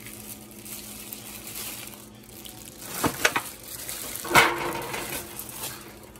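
Plastic bag of raw meat crinkling and rustling as it is squeezed and handled over an aluminium foil pan, with louder crackles about three seconds in and the loudest just after four seconds.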